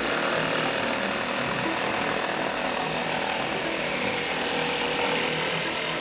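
Corded electric jigsaw cutting through a thin plywood panel, running continuously, its motor pitch dipping and rising with the load.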